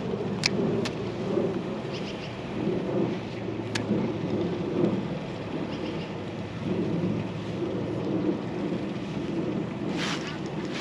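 Rain falling, with a continuous low rumble and a few sharp ticks of drops or small knocks close to the microphone.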